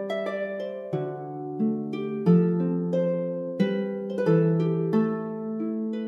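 Background music: a slow melody of plucked-string notes, each note struck and left to ring out.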